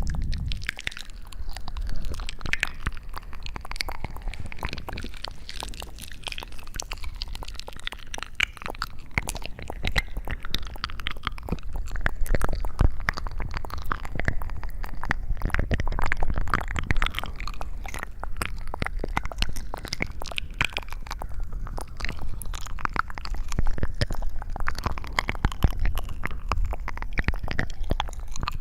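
Close-miked ASMR trigger sounds: a dense, unbroken stream of crackles and clicks over a constant low rumble.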